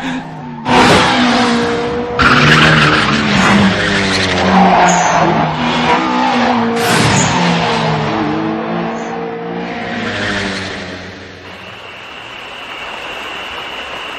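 Anime race sound effects of Toyota AE86 engines revving hard, the pitch climbing and dropping with the gear changes, with several tyre squeals as the cars slide through corners. Near the end the engine noise fades out, leaving a steady high tone.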